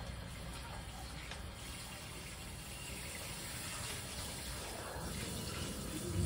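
Kitchen faucet running steadily into the sink during dishwashing.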